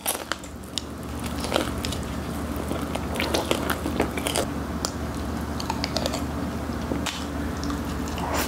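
Close-miked biting and chewing of crispy Korean fried chicken, with many sharp crunches and crackles of the fried coating throughout.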